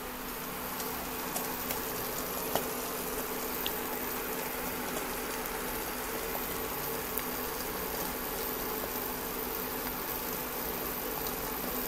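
Egg omelette frying in a nonstick pan, a steady sizzle with a few faint pops, over the steady buzzing hum of the electric hob.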